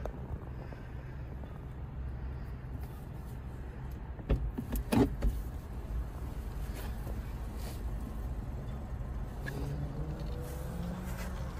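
Low steady rumble inside a parked car's cabin, with a few sharp knocks about four to five seconds in.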